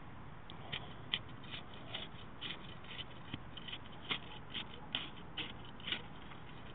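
Short, irregular scratchy crunches of soil being worked by hand and with a thin probe rod pushed into the dirt of a gopher tunnel, about fifteen in all, stopping about six seconds in.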